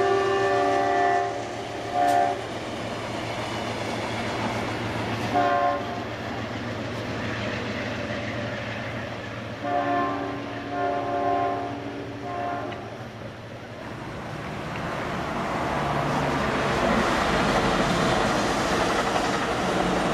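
Amtrak passenger train's locomotive horn sounding a multi-note chord: a long blast at the start, short blasts around two and five seconds in, then a series of blasts about ten to thirteen seconds in. Over this runs the rumble of the approaching train, which grows into a loud rush of the train passing over the last several seconds.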